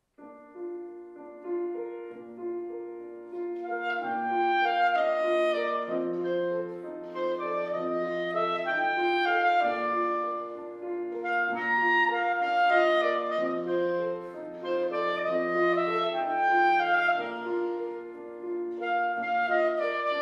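Clarinet playing a classical melody over grand piano accompaniment.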